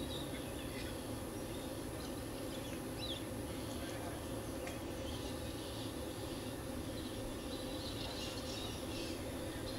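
Open-air ambience: a steady low background noise with scattered short, high-pitched chirps, more of them near the end.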